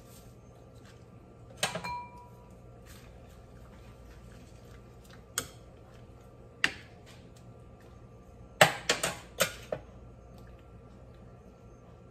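Spoons knocking against a metal soup pot during stirring: a few single clinks, one with a short ring, then a quick run of four or five taps about nine seconds in, over a low steady hum.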